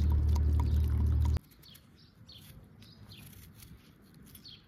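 Water poured from a clay jug splashing onto onions in a bowl, cutting off suddenly about a second and a half in. Then small birds chirp faintly.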